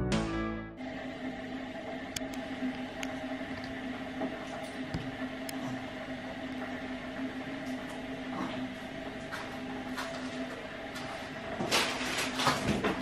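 Intro music cuts off within the first second, giving way to a steady hum of a household appliance with a few small clicks. Near the end comes a run of light clattering and tapping.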